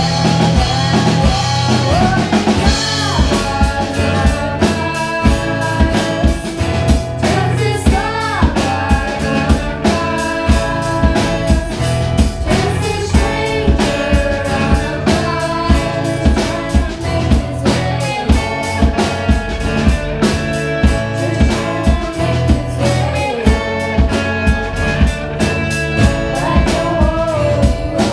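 Live rock band playing a song: a singer over electric guitars and bass with a steady drum-kit beat.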